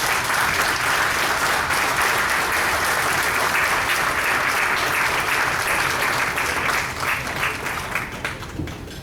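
Banquet-hall audience applauding steadily, tapering off near the end.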